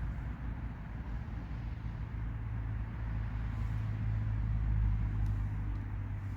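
Road traffic: a car passing on a road, a low rumble that swells to a peak about five seconds in and then eases off.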